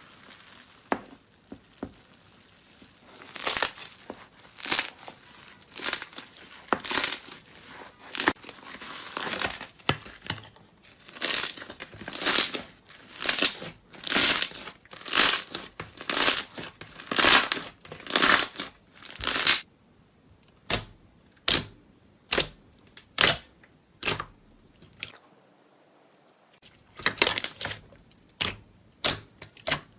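Slime being squeezed and pressed by hand: a run of short crackly bursts about one a second, turning into sharper, shorter clicks later on, with a short pause before the bursts return near the end.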